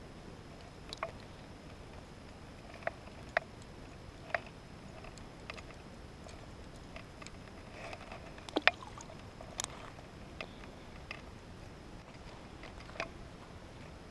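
Scattered short clicks and taps of small tackle being handled while a hooked perch is freed with a hook extractor, about eight in all, the loudest a quick double tick a little past the middle, over a steady low background hiss.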